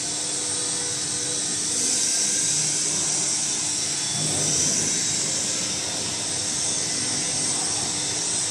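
Motors of an open dual-shaft paste mixer running: a steady high-pitched hiss with a low hum underneath.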